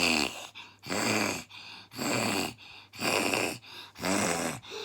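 A young child's mock snoring: about five loud snores roughly a second apart, each followed by a softer breath out.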